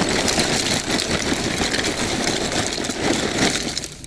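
Lumps of wood charcoal tumbling out of a paper sack onto a fire ring of stones: a dense, steady clatter of small pieces, with the paper sack rustling.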